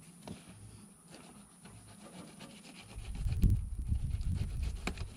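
Fillet knife scraping and sawing along the skin of a freshwater drum fillet on a plastic cooler lid as the skin is worked off. The scraping is faint at first and turns to louder, rough rubbing with small clicks about three seconds in.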